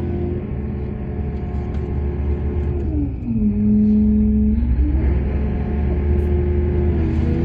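Heavy diesel engine of mining machinery running steadily. About three seconds in, its pitch drops and it grows louder for a second or two, as if lugging under load, then it comes back up to its running pitch.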